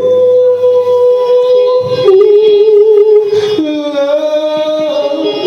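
A soul singer holding a long sung note that slides up into it, then steps down in pitch twice, over a live band's accompaniment.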